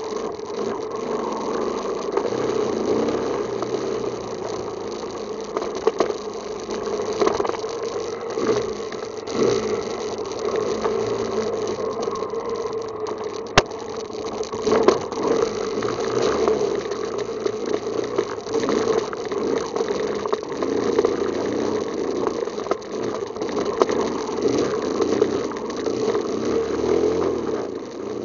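ATV engine idling steadily, with rattling and occasional knocks from the machine.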